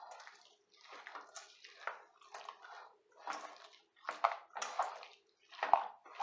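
Wooden spoon stirring thick vegetable stew and frozen peas in a stainless steel mixing bowl: wet squelching and scraping in repeated strokes, with one sharper knock near the end.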